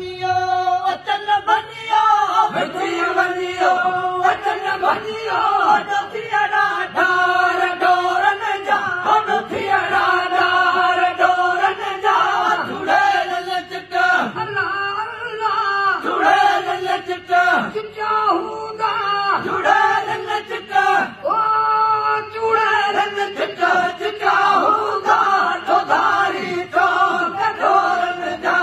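Men singing a Sindhi devotional song together, voices wavering through melodic phrases over a steady held drone note.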